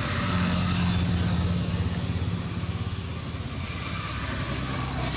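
A motor vehicle's engine running with a steady low hum, loudest in the first two seconds and easing off after.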